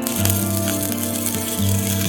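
Background music with held, steady bass notes, over an even hiss that starts suddenly at the very beginning.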